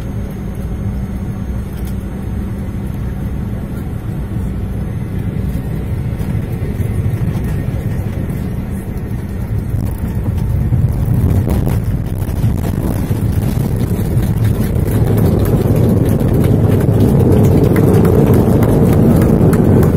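Airliner cabin noise during landing, picked up by a phone: a steady rumble of engines and airflow that turns louder and rougher about halfway through as the plane reaches the runway, then builds to a heavy roar over the last few seconds as it rolls and slows.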